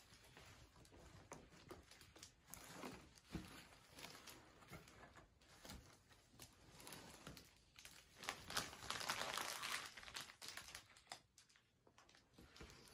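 Faint rustling and crinkling of gift packaging being handled and unwrapped, in irregular bursts, with a longer, louder stretch of crinkling about eight to ten seconds in.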